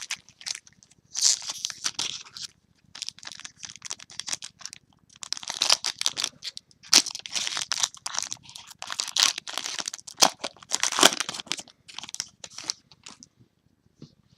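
Trading-card pack wrappers crinkling and tearing as packs are opened and cards handled: irregular crackly rustling in clumps, with small clicks.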